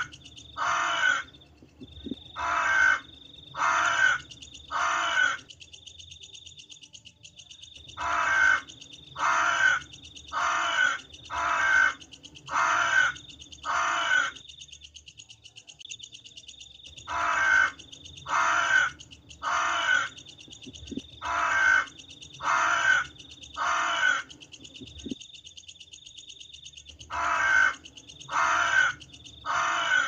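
Crows cawing: runs of short, harsh caws, a little over one a second, each run lasting several seconds and broken by pauses of two to three seconds.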